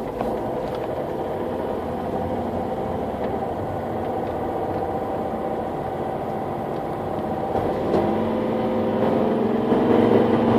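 Volvo V50 D5 diesel engine running, recorded for a strange sound from its engine bay. About eight seconds in, a louder steady droning tone comes in over the engine noise and the level rises.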